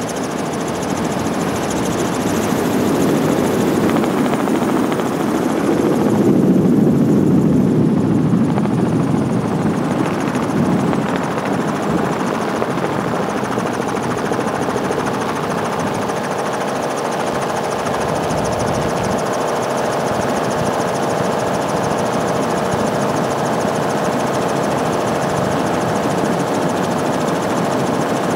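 Helicopter running steadily, heard from on board: continuous rotor and engine noise with a steady whine, swelling louder for several seconds early on before settling.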